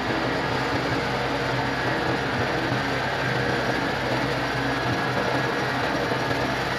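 Workshop machine running steadily with a fast, even mechanical rattle and hum.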